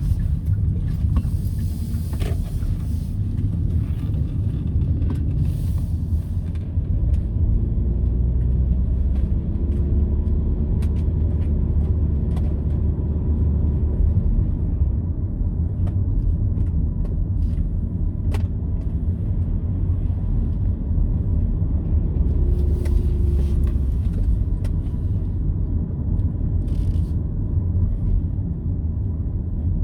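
Steady low rumble of road and engine noise inside a moving car's cabin, with a few brief hissing swells and small clicks.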